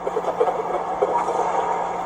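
Exhaust of a 2019 Porsche Cayenne's turbocharged 3.0-litre V6 crackling and popping, irregular sharp pops over a steady drone, from an ECU tune set up for exhaust pops.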